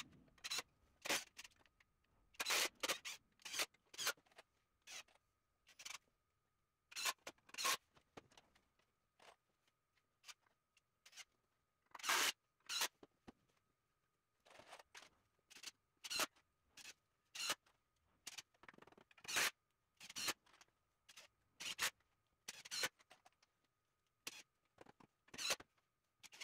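Irregular knocks, taps and clatter of softwood battens being handled and set down on a plastic folding workbench as a small stud frame is put together, some in quick clusters. A faint steady high whine runs underneath.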